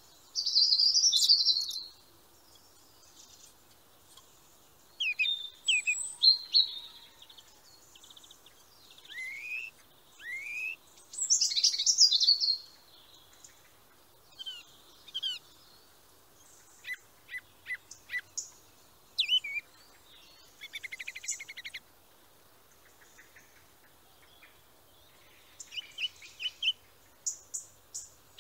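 Small songbirds chirping: varied high chirps, short whistled glides and a brief rattling trill, with a few quiet gaps of several seconds between calls.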